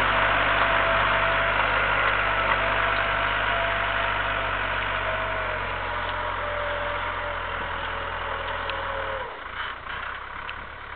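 Tractor's diesel engine running steadily under load as it pulls a mounted mouldboard plough through the soil, growing quieter as the tractor draws away.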